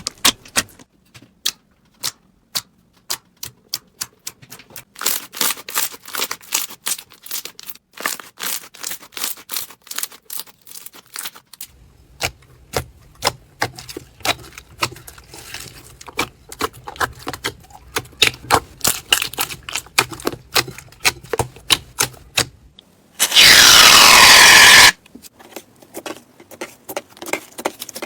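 Crunchy slime being squeezed and pressed, giving irregular sharp crackles and pops in quick succession. Near the end there is a loud rushing burst lasting about a second and a half.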